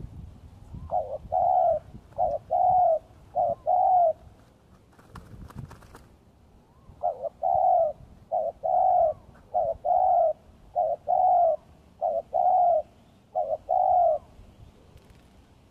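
Spotted dove cooing: two runs of short, repeated coo notes with a pause of about three seconds between them.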